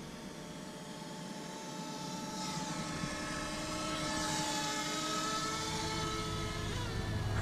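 DJI Mavic Air quadcopter's propellers whining, several steady tones at once, growing louder over the first few seconds as the drone comes closer. The pitch shifts slightly near the end.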